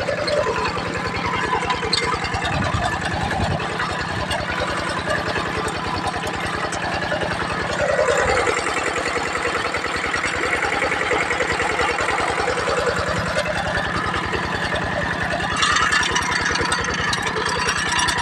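Kubota tractor engine running steadily while working a field, a fast, even chug of firing strokes. It grows a little louder about eight seconds in and again near the end.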